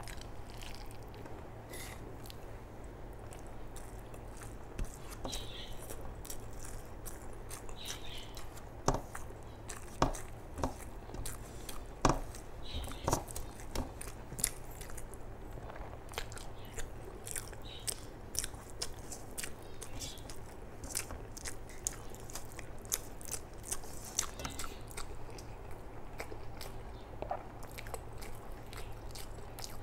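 Close-up chewing and lip-smacking of a mouthful of rice with chicken liver and gizzard curry, eaten by hand: a run of soft wet clicks and smacks, with a few louder smacks about nine to thirteen seconds in, over a low steady hum.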